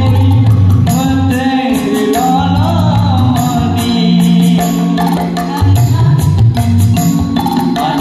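A mixed group of singers singing a song together into microphones, accompanied by tabla and keyboard, heard amplified.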